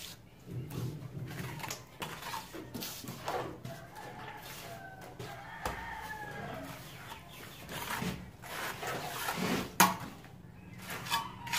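Steel trowel scraping and tapping mortar around a plastic switch box on a concrete-block wall, with a rooster crowing in the background about halfway through.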